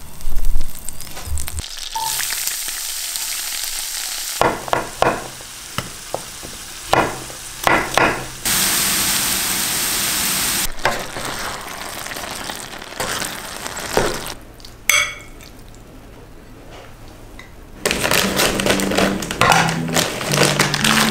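Butter and chopped onions sizzling and frying in a frying pan, with runs of sharp knocks and scrapes as a spatula stirs them against the pan and a loud clunk at the very start. Near the end comes a dense crackle, fitting a plastic bag of dried porcini mushrooms being torn open.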